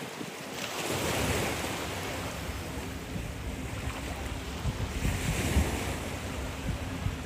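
Surf washing onto a sandy beach, swelling about a second in and again around five seconds in, with wind rumbling on the microphone.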